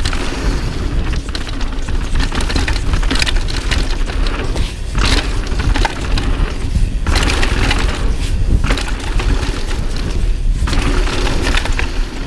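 Mountain bike riding fast down a rough trail: tyres crunching over dirt and rocks and the bike rattling in irregular bursts, over a steady rumble of wind on the camera microphone.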